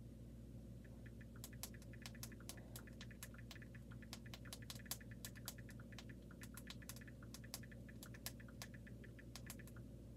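Faint, irregular taps of typing a message on a phone, several a second, over a steady low hum.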